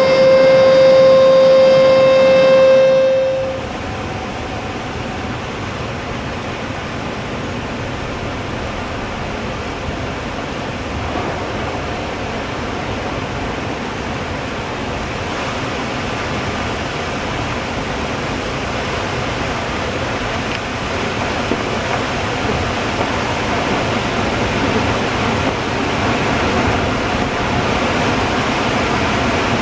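A warning siren holds one steady tone and cuts off about three seconds in. It gives way to the steady rush of water pouring from a dam's released outlets, which grows a little louder later on.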